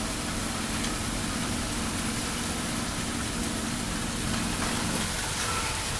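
Thunderstorm rain falling steadily, with a low steady hum under it that fades out about five seconds in.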